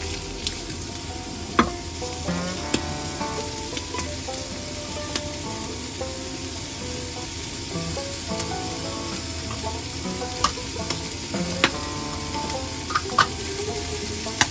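Food sizzling steadily in a frying pan as it is stirred, with sharp clicks of a utensil striking the pan now and then. Soft background music plays underneath.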